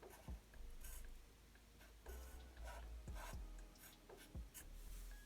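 Pencil scratching on paper in several short, faint strokes about a second apart, drawing small circles.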